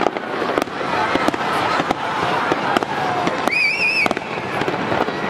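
Fireworks going off: a rapid run of bangs and crackles over a continuous rumble, with a brief warbling whistle about three and a half seconds in.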